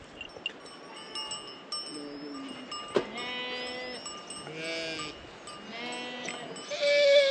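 Sheep of a grazing flock bleating, about five separate calls, with the loudest near the end. Small bells ring faintly among them.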